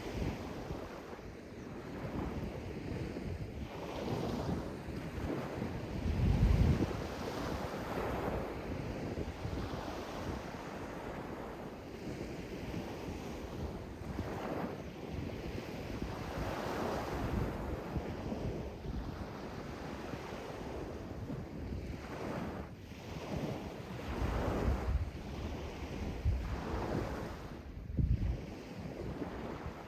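Sea waves washing in and drawing back, a rushing sound that swells and ebbs every few seconds. Wind buffets the microphone with low booming gusts about six seconds in and again near the end.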